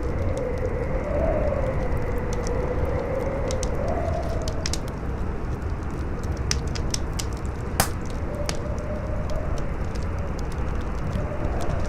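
Wind howling in a slowly wavering whistle over a steady rushing noise, with a fire crackling in scattered small pops throughout; one sharper pop comes about eight seconds in.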